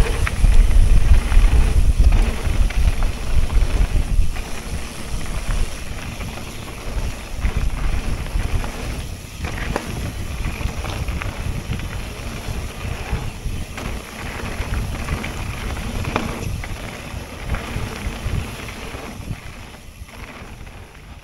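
Mountain bike rolling fast over loose gravel: tyres crunching and the bike rattling, with wind buffeting the microphone. The wind rumble is heaviest for the first few seconds, then the ride noise goes on lower until it fades out at the end.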